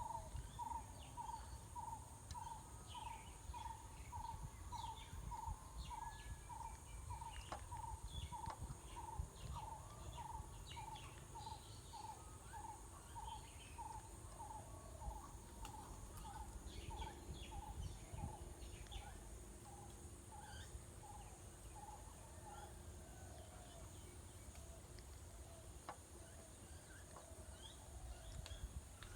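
Birds calling outdoors. One bird repeats a short note about twice a second, stopping a little past halfway, while others give scattered short chirps over a faint steady high hiss and low rumble.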